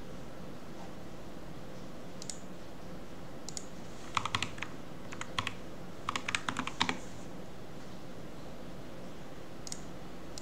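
Typing on a computer keyboard: a couple of lone taps, then quick runs of keystrokes from about four to seven seconds in, and one last tap near the end, over a low steady background hum.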